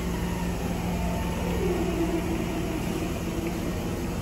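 An electric commuter train creeping slowly up to couple to a standing train. Its motor whine falls in pitch about halfway through as it slows, over a steady hum.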